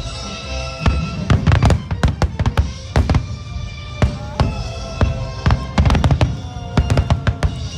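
Fireworks going off in quick, irregular bangs, several close together at times, over loud music accompanying the show.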